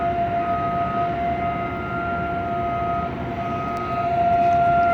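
Outdoor warning sirens sounding in a weekly test: a steady wail holds one pitch, while a second, higher tone swells and fades about once a second as a rotating siren turns. The sirens grow louder near the end.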